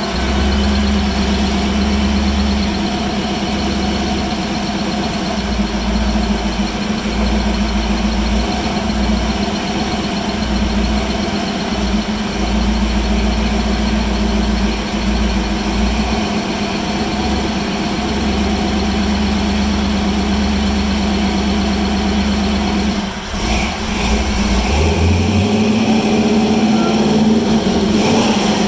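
Ford 302 small-block V8 with 351 Windsor heads idling steadily. About three-quarters of the way through the sound dips briefly, then runs slightly higher and louder.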